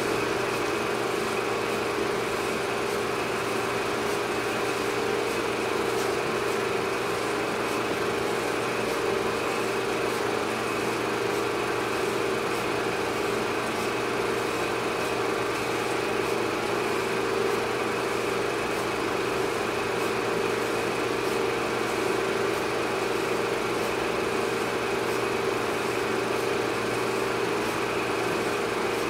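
A steady, unchanging machine-like drone, an even hum over a hiss.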